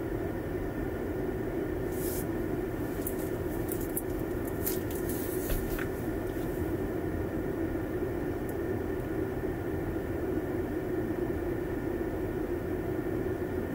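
Steady hum of a car heard from inside the cabin, with a handful of short clicks and rustles a couple of seconds in.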